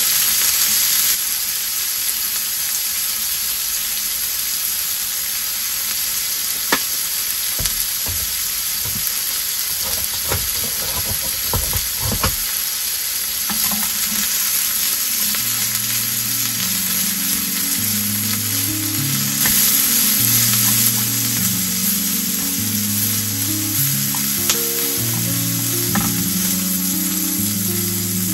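Sausage slices and leafy greens sizzling in a ridged grill pan over a portable gas stove. Now and then the chopsticks click against the pan as the food is turned.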